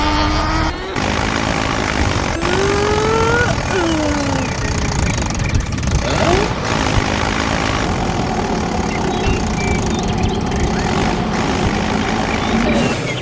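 Engine running, its pitch swooping up and down a few times in the first seconds, then settling into a steady drone.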